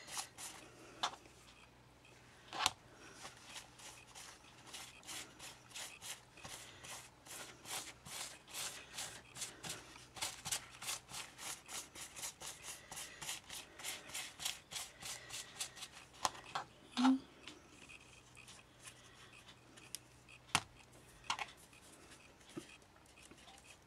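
A paintbrush scrubbing acrylic paint onto stiff, heat-bubbled fabric: quick, repeated scratchy strokes a few times a second, thinning out after about 16 seconds. A couple of sharp clicks come later on.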